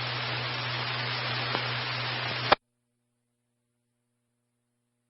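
Two-way radio static through a scanner: an even hiss over a steady low hum from the open channel after a transmission. It cuts off with a click about two and a half seconds in as the squelch closes, leaving dead silence.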